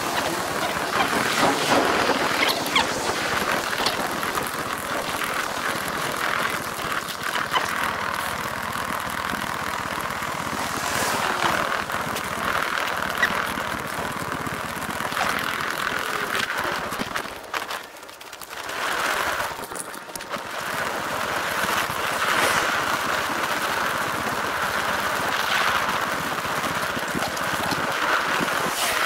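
Eight-times fast-forwarded outdoor sound of a loaded hand cart being wheeled over paving, heard as a continuous high-pitched rattling hiss. It dips briefly about 18 seconds in.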